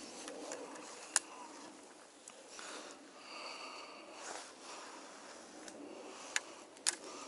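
Handling of a fishing rod and reel during a cast: a few sharp clicks, one about a second in and two close together near the end, over a faint steady hiss.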